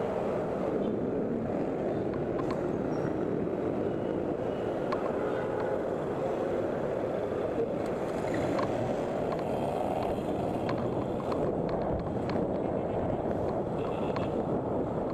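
Steady rush of wind and road noise while riding a Teverun Blade GT electric scooter, with a few faint ticks and clicks here and there.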